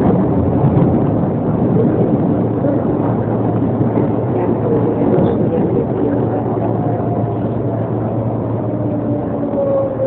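R143 subway train running on the L line: a steady rumble and rush of wheels and motors, with a falling motor whine near the end.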